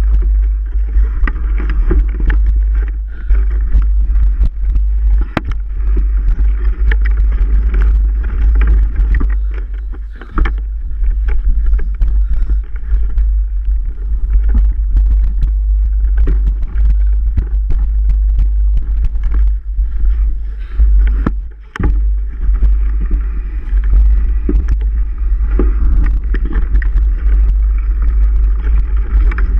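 Mountain bike riding over a rough trail: steady low wind rumble on the microphone, with tyre noise and frequent clicks and rattles from the bike.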